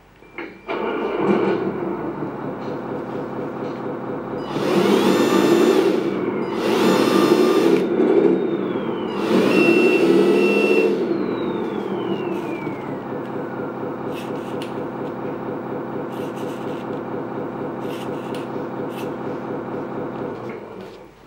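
Simulated truck engine from the sound ESC of a LESU 1/14 MAN 8x8 RC truck: it starts up about a second in and idles, is revved three times with loud rising-and-falling surges, winds back down to idle, and cuts off about a second before the end.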